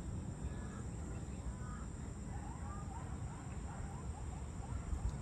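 A bird calling a run of about eight short rising notes, roughly three a second, with a few fainter notes before it, over a steady low rumble.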